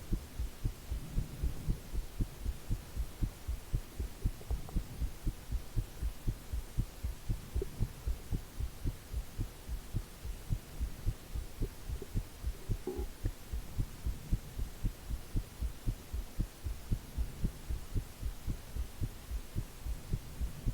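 A person's heartbeat, picked up close with headphone-style emphasis on the bass: a steady, regular run of low thuds that goes on without a break. A faint hiss of white noise from the recording sits behind it.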